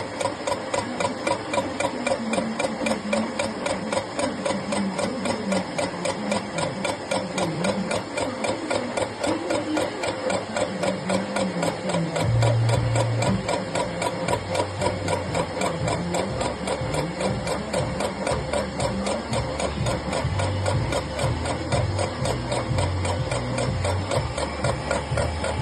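Machine skimming the face of a Nissan Micra engine's cylinder head, giving a steady, rapid, even rhythm of cutting strokes over a constant whine. A deeper hum joins about halfway through.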